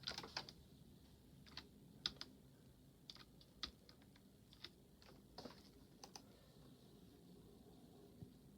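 Near silence with a dozen or so faint, short clicks at irregular intervals.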